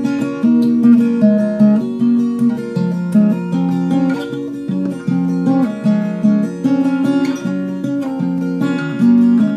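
Acoustic guitar with a capo on, fingerpicked: a steady run of plucked notes, with lower bass notes under a higher melody.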